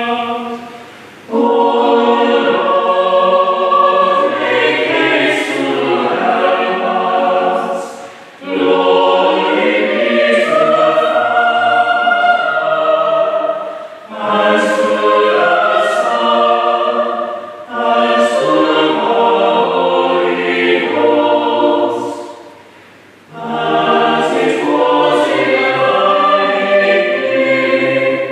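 Chapel choir singing sacred choral music in several parts, in phrases of four to seven seconds with short gaps between them.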